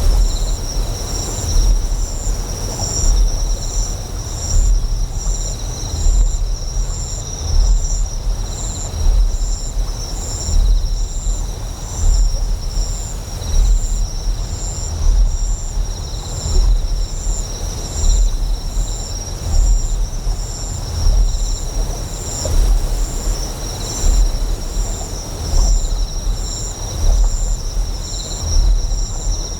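A deep generator hum that swells in regular pulses about every second and a half, layered with steady high-pitched insect chirping and a haze of flowing water.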